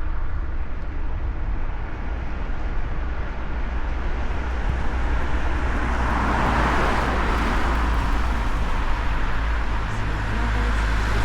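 Street traffic: cars running by, with one passing close, swelling and fading, about six to nine seconds in, and a low engine hum near the end.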